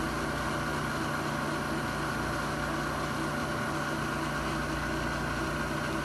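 Webb Champ vertical milling machine running, its head and spindle drive giving a steady hum with a few constant tones while the quill is fed down.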